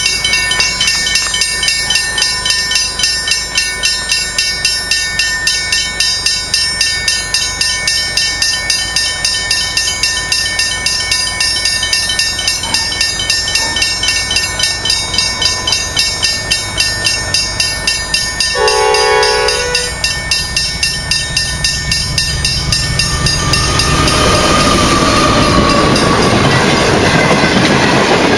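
Pacific National NR class diesel locomotive approaching, sounding its multi-note horn once for about a second about two-thirds of the way in, then its engine and the empty rail wagons grow loud as the train passes close. Before the train arrives, a fast, even ringing pulse at about three or four strokes a second runs steadily, then is buried by the train noise.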